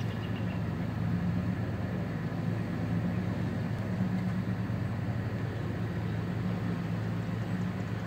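An engine running steadily, a low even hum that does not change.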